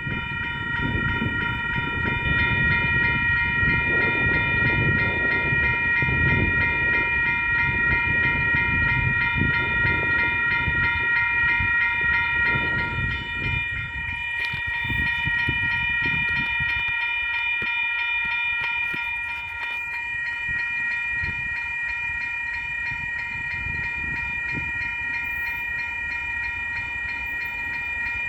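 KiwiRail DL-class diesel-electric locomotive passing through a level crossing, its engine and wheels rumbling loudest in the first half and easing off after about 14 seconds. Over it the crossing's Western Cullen Hayes electronic bells ring steadily as a rapid, repeating chime.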